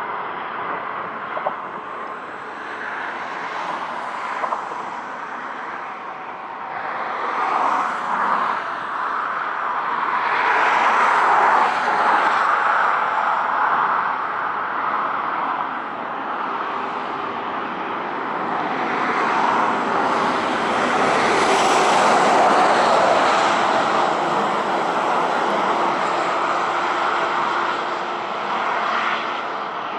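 Passing road traffic: a steady rushing noise that swells and fades twice, with a faint engine hum in the second half.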